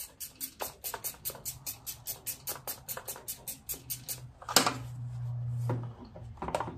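Ratchet wrench clicking rapidly and evenly, about six clicks a second, as it backs out a shroud bolt on a riding mower's engine. A single metal knock comes about two-thirds of the way through, followed by a brief low hum.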